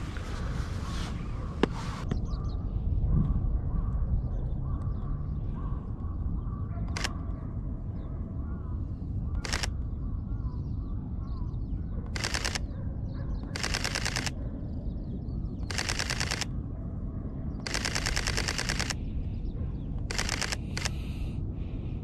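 Mirrorless camera's mechanical shutter firing: a few single clicks, then from about halfway through a run of rapid bursts, each about half a second to just over a second long. A steady low outdoor background noise sits underneath.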